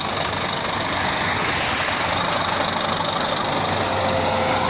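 Scania G460 truck's diesel engine idling steadily, with road traffic going by.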